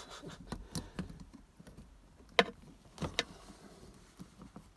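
Scattered small clicks and taps of metal parts being handled while a spring is worked into a B&M shifter's lockout mechanism. The sharpest click comes about two and a half seconds in.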